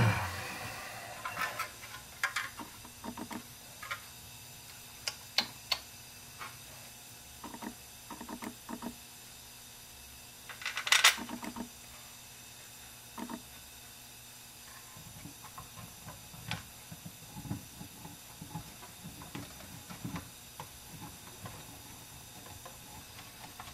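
Light metal clicks and taps of steel bolts being picked up and set finger-tight into the holes of a Ford C6 transmission valve body. There is a louder clatter about 11 seconds in.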